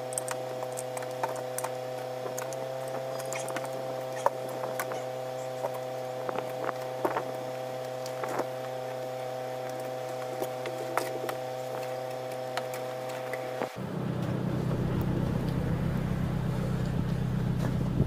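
Snow brush sweeping snow off a car: a scatter of short scrapes and light knocks over a steady low hum. About fourteen seconds in the hum gives way to a louder low rumble.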